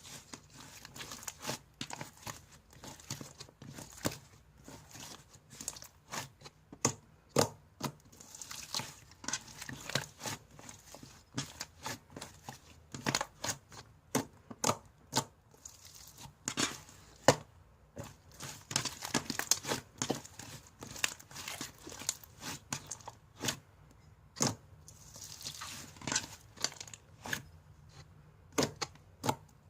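Hands playing with slime: an irregular string of sticky clicks, pops and crackles as it is pressed, stretched and folded, with crinkly stretches between the louder pops.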